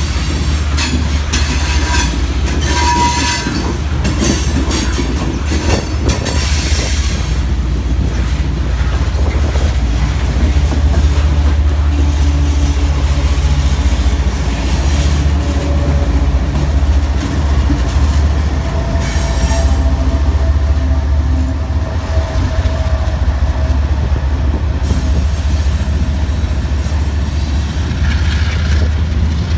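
Loaded steel coal hoppers rolling past with wheel flanges squealing on the curve, then the rear helper pair of GE ES44AH diesel locomotives pushing by with a steady, loud engine drone and rumbling wheels.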